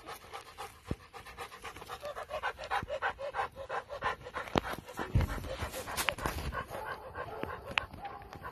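Rottweiler panting hard in a quick, even rhythm of about four to five breaths a second, with a few sharp clicks and a dull thump a little after five seconds in.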